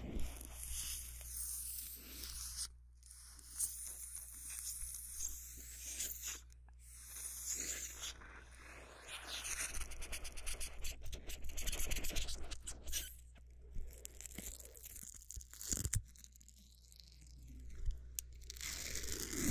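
Scratchy tearing and crackling of small objects handled right at a binaural 3D microphone. The sound comes in bursts with short pauses and is densest and loudest a little past the middle.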